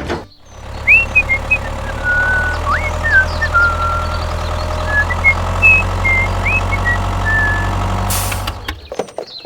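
Steady drone of a running engine, holding one pitch and stopping near the end, with short high chirps scattered over it.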